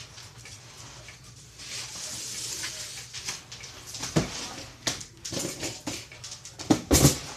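Serving noises: a black spatula scraping through the food in a cast-iron skillet, then a series of knocks and rattles as a helping is set onto a foam plate, the loudest clatter near the end.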